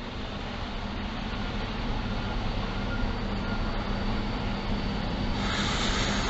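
Semi truck's diesel engine idling steadily, a low even hum under a hiss, with a louder hiss starting about five and a half seconds in.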